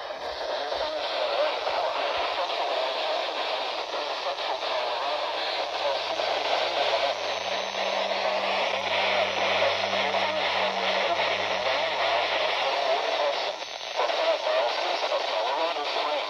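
Radio static: a steady hiss of noise from a radio receiver, with a faint low hum underneath for several seconds in the middle and a brief dip near the end.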